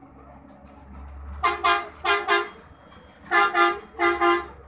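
A vehicle horn honking in quick double toots: four pairs of short blasts, starting about a second and a half in.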